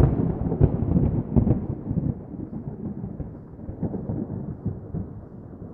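Rolling thunder: a crackling low rumble, loudest in the first second and slowly fading away.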